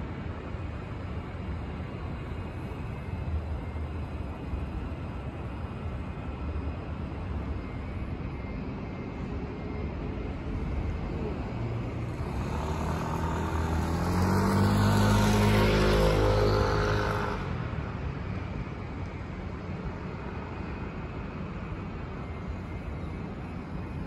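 Steady street traffic hum, with one motor vehicle passing close by. The vehicle swells to its loudest a little past halfway and fades within a couple of seconds.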